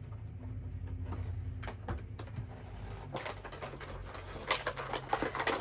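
Action figure being taken out of its plastic packaging: scattered small plastic clicks and crinkles, busier near the end, over a steady low hum.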